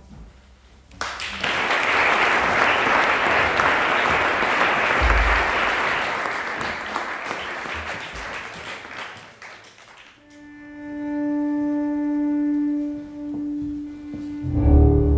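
Carbon-fibre cello bowed: first about eight seconds of hissing, pitchless bow noise, then a long held note that swells and fades, with deeper notes coming in near the end.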